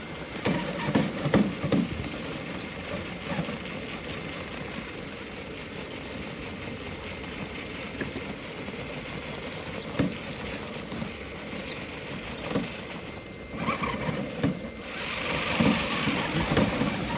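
Radio-controlled scale crawler trucks driving over a rocky trail: small electric motors and gearboxes whirring, with scattered knocks of tyres and chassis on rock. It is louder near the start and again near the end.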